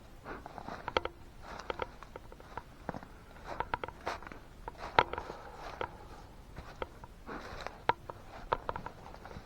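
Irregular light clicks, taps and knocks, a few every second, with no engine running.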